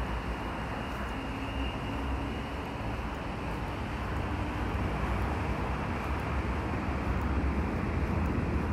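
Steady low rumble with a hiss over it, getting a little louder toward the end.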